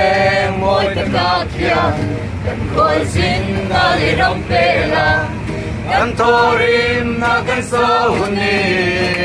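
A group of voices, mostly men, singing together in chorus, with an acoustic guitar accompanying, inside a bus.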